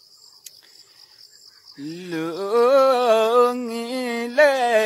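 A man singing a Limbu palam folk song unaccompanied. After a short pause, a long held note starts about two seconds in and wavers in pitch, and a new phrase begins near the end.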